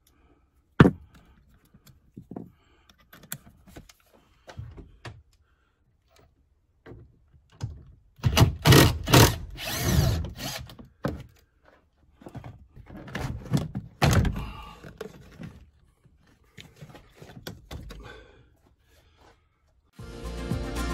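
Plastic door trim panel on a Chevy truck door being worked loose and handled with hand tools: scattered clicks and knocks, with louder stretches of rattling and knocking about eight seconds in and again around fourteen seconds.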